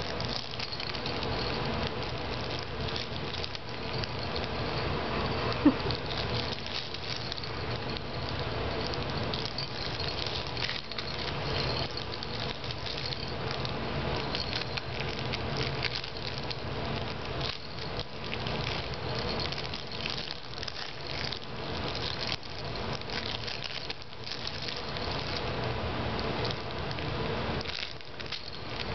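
Rustling, crackling and rattling of a plush elephant baby toy with attached plastic rings and teether, handled and tugged by a baby, with one brief sharp sound about six seconds in.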